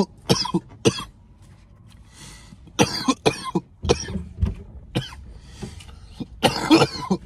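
A man coughing in fits: a quick run of about four coughs at the start, a short pause, then more bursts of coughing, the strongest near the end.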